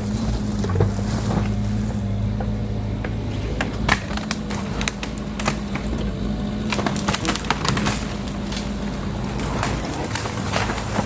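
A construction machine's engine running steadily, with frequent sharp cracks and knocks of debris being broken and moved.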